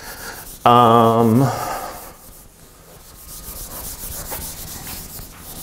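A dry-erase eraser rubbing across a whiteboard in repeated strokes, wiping off marker writing. About half a second in, a man's voice makes a short, drawn-out wordless sound, the loudest thing here.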